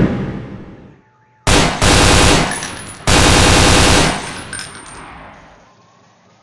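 Bursts of automatic gunfire. One burst dies away in the first second, then three more start about one and a half, two and three seconds in, the last lasting about a second, each trailing off in a long echo.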